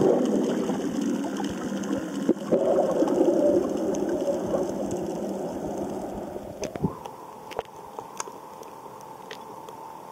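Underwater noise picked up by a submerged camera: a low, machine-like drone that fades out about seven seconds in, leaving scattered sharp clicks and a faint steady hum.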